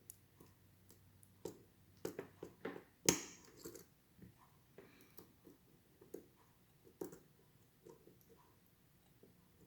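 Faint, irregular small clicks and scrapes of a pick and tension wrench working the pins of an ASSA 700 pin-tumbler lock. One louder click comes about three seconds in.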